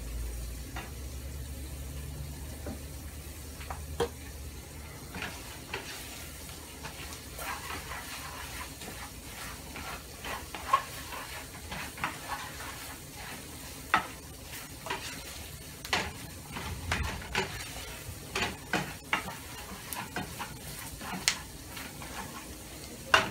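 Onions and bell pepper sizzling in oil and flour in a frying pan while a spoon stirs and scrapes them, with frequent sharp knocks of the spoon against the pan from a few seconds in.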